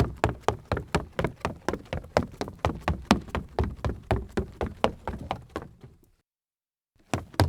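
Sneakers running on a wooden floor, quick even footfalls about five a second. The steps fade out about six seconds in, and after a second of silence a new run starts near the end.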